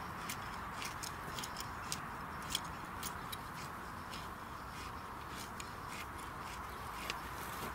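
Garden hoe being worked through dry soil in a raised bed: irregular short scratchy ticks as the blade moves, over a steady background hiss.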